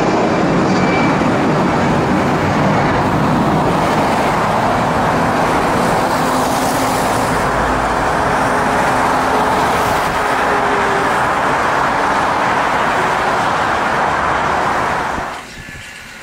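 Jet engines of a twin-engine Airbus A320-family airliner climbing away after takeoff: a loud, steady rushing noise. It cuts off abruptly near the end.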